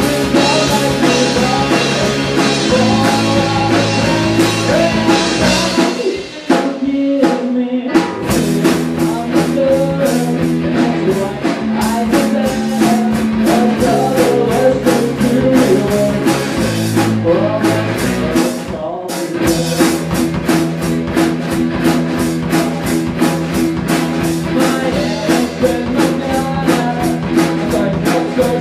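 A rock band playing live: electric guitars and a drum kit, with a male lead vocal. The band cuts out briefly about six seconds in, where a few sharp drum hits sound, then comes back in.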